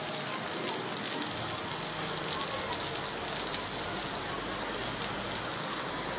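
Steady rain falling, an even patter that neither rises nor stops.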